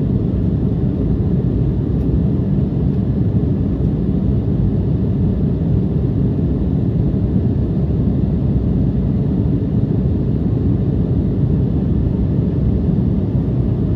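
Steady low rumble inside the passenger cabin of an Embraer 175 jet in flight: the noise of its turbofan engines and the air rushing past the fuselage, unchanging throughout.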